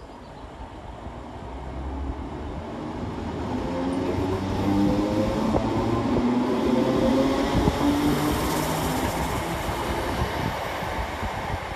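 ScotRail Class 320 electric multiple unit pulling away from the platform, its traction motors whining over the rumble of wheels on rail. It grows louder over the first five seconds as it gathers speed, then holds steady.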